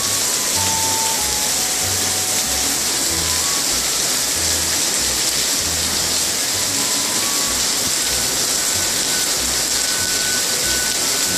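Heavy rain pouring down steadily, a loud even hiss of rain on foliage and ground.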